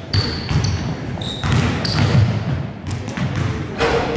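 Basketballs bouncing on a hardwood gym floor in repeated thuds, with a few short high squeaks.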